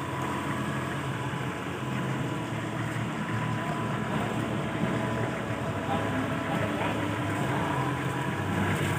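An engine idling steadily, with a low hum that swells and fades about once a second and a faint steady whine above it.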